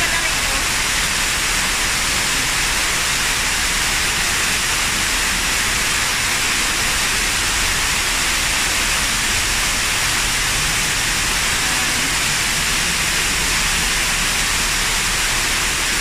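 Artificial waterfall pouring down a rock face close by: a steady, loud rushing hiss of falling water.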